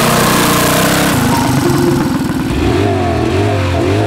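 Mega Moto 80 mini bike's engine running as the bike is ridden, with a rapid even firing pulse. About two-thirds through, the engine sound gives way to steady low tones and repeated rising-and-falling tones.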